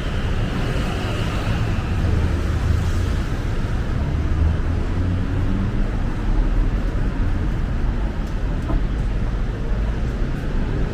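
Steady rumble of road traffic on a busy city street.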